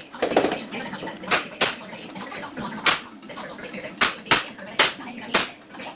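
Pneumatic nail gun firing seven sharp shots, spaced unevenly in pairs and singles, driving nails into wooden boards.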